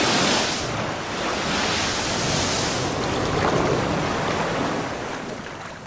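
Ocean surf breaking over a rocky shore. A wave crashes at the start, a second surge of wash follows about a second and a half later, and the noise dies down near the end.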